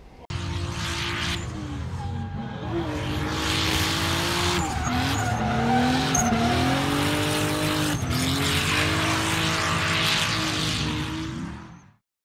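Car engine revving up and down, with tyres squealing and skidding as in drifting. It starts abruptly, grows louder in the first few seconds, and fades and cuts off just before the end.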